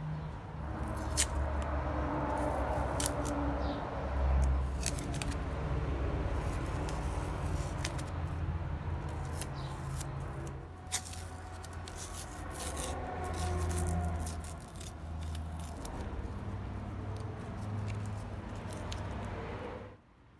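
Metal parts of a restored hand punch being handled and turned, with scattered sharp metallic clicks and light scraping over a steady low rumble; the sound drops away suddenly near the end.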